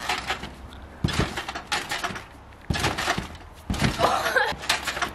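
Trampoline bouncing: the mat thuds each time the jumper lands, several landings about a second apart. A short burst of voice comes near the end.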